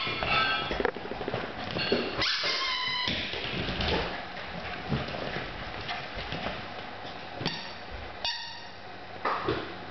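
Red rubber squeaky-toy ball squeaked in bursts by a Cairn terrier puppy chewing it, several short squeaks, with knocks and clicks of the ball and paws on a wooden floor in between.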